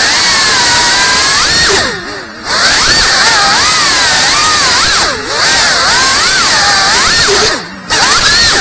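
FPV quadcopter's brushless motors and propellers whining, the pitch sliding up and down with the throttle over a steady rush of prop wash. The sound drops away briefly three times, about two seconds in, five seconds in and near the end, as the throttle is chopped in turns.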